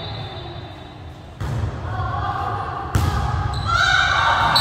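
A volleyball struck with a single sharp thump about three seconds in, in an echoing gym. Players' and spectators' voices rise and shout just after it.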